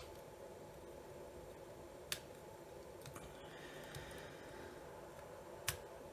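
Three faint, sharp clicks a couple of seconds apart, with light scraping between them: small tools and plastic parts being handled while the camera head of an inspection camera is worked open.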